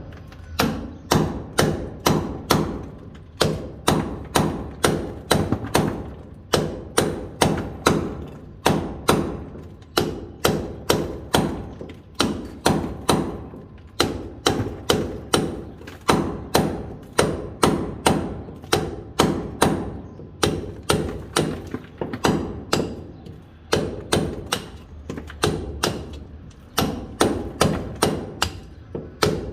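Hand hammer striking a steel chisel to break up a masonry wall: sharp blows about two to three a second, in runs with short pauses, each with a brief metallic ring.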